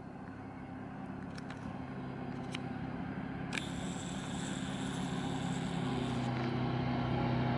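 Diesel engine of an approaching yellow rail tamper running steadily and growing louder as it nears, with a few sharp ticks in the first half.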